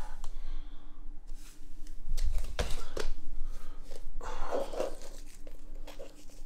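Close rustling and handling noises with several short soft knocks; near the end, scraps of a burst rubber balloon are picked up off a laminate floor.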